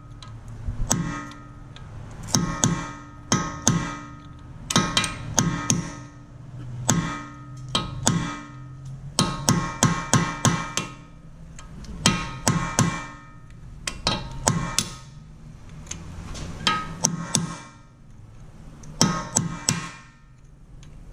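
Hammer blows on a steel punch set in a stuck Phillips-head rotor retaining screw on a 2010 Honda Civic's front brake rotor, in quick groups of two to four strikes, each leaving the cast-iron rotor ringing. The screw is being shocked loose so it can be turned out.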